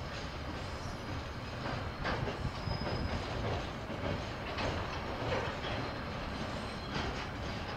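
KiwiRail train's wagons rolling past on the rails: a steady rumble with irregular clacks of the wheels over the track every second or two, and a brief faint squeal about three seconds in.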